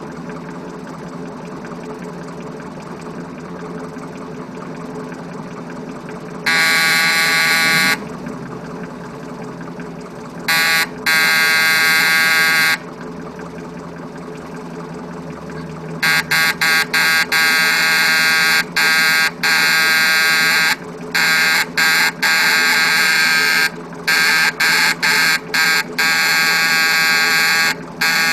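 An electric alarm buzzer sounding in loud, abrupt bursts over a steady low machinery hum: once about six seconds in, twice more around eleven seconds, then from about sixteen seconds in a fast irregular run of short and long blasts.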